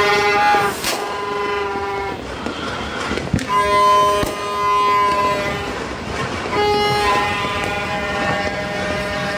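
A horn sounding three long, steady blasts of about two seconds each, several notes held together as a chord. A sharp firework bang cracks about three seconds in.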